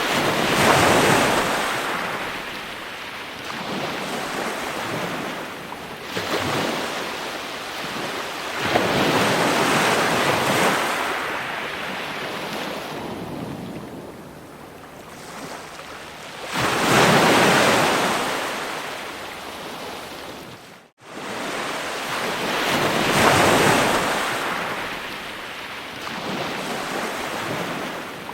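Ocean waves breaking on a shore: the surf swells and falls back every few seconds, with louder breakers about a second in, around ten seconds and around seventeen seconds. About three-quarters through, the sound drops out completely for a moment, then comes back.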